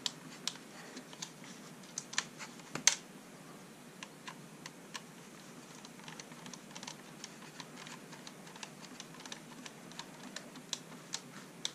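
Hand screwdriver turning a screw into a plastic RC chassis part: a string of small, irregular clicks and ticks, with a sharper click about three seconds in.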